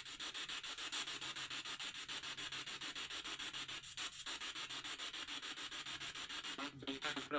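Handheld spirit box (ghost box) sweeping through radio stations: rapid choppy static, about eight pulses a second, with short dropouts about four seconds in and near the end. One fragment of the sweep is taken for a voice saying 'dónde está el problemo'.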